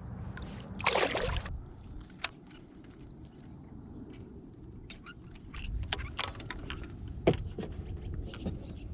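Water sloshing with a brief splash about a second in, and scattered small clicks and knocks of gear being handled, over a low steady rumble.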